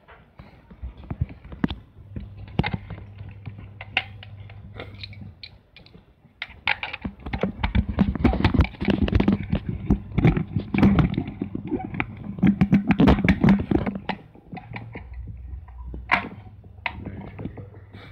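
Handling noise: rustling, clicks and knocks as cables and a small plug-in battery charger are moved about on a tiled floor, loudest and densest in the middle, with a low hum coming and going.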